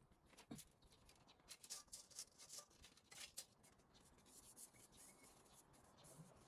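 Faint, irregular scraping and rubbing.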